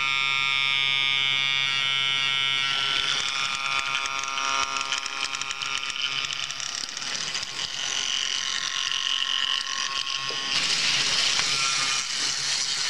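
Red electric train passing close by, with a steady, many-toned buzzing whine from its electric drive. A louder rushing noise of the passing cars rises about ten seconds in.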